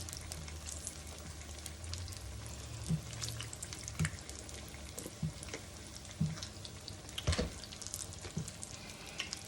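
Battered cauliflower frying in hot oil in a skillet: a steady sizzle with scattered sharp pops.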